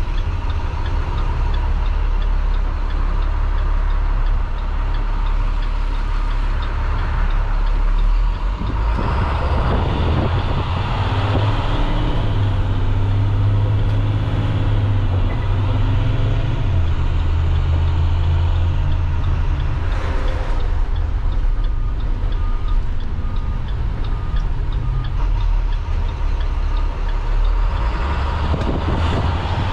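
School bus MaxxForce DT diesel inline-six heard from the driver's seat: idling, then pulling away about nine seconds in. Its engine note rises as it gains speed, drops back, and climbs again near the end.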